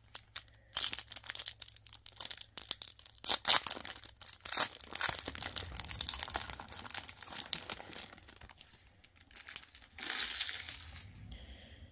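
Plastic wrapper of a 2022 Topps Pro Debut trading-card pack being torn open and crinkled in irregular crackling bursts for several seconds. A last burst of crinkling comes about ten seconds in.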